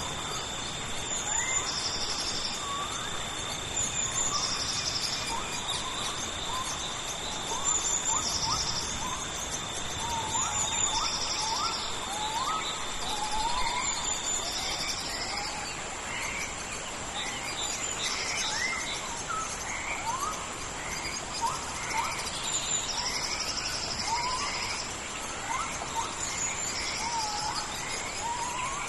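Tropical rainforest ambience: a steady hiss of rain under a chorus of insects, with one high steady drone throughout, a pulsing buzz repeating about every two seconds, and a second steady drone that stops about halfway through. Many short rising chirps from animals call over the top.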